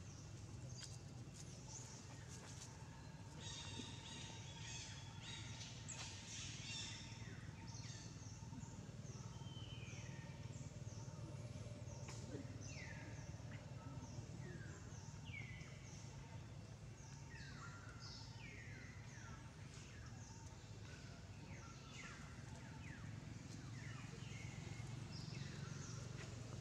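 Birds calling in the forest: many short, high calls, each falling in pitch, repeating one after another over a steady low background rumble.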